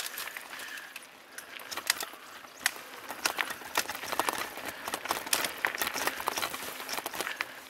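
Mountain bike rolling fast down a rocky dirt trail: tyres crunching over stones and the bike rattling, with many quick irregular clicks and knocks.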